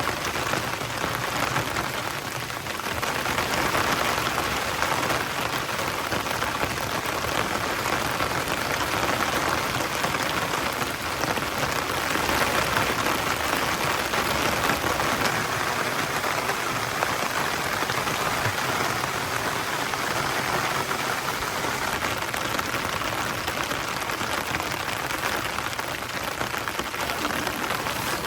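Rain falling steadily, an even patter with no let-up.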